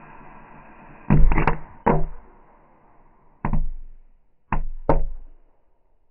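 Firecracker hissing as it burns under an upturned plastic bucket, then six sharp bangs muffled by the bucket: three in quick succession, a single one, then two close together.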